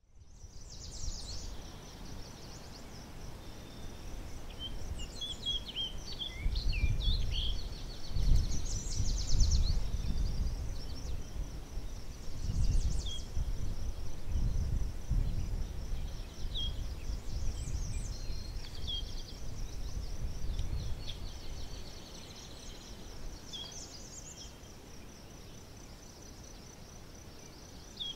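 Outdoor nature ambience: crickets trilling steadily in a high, fast-pulsing drone, with scattered bird chirps and calls. Underneath is a low rumble that grows louder through the middle and eases near the end.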